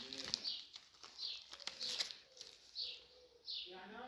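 A short high chirp repeating every second or less, typical of a small bird calling, over a faint crinkle of plastic zip-lock bags being handled.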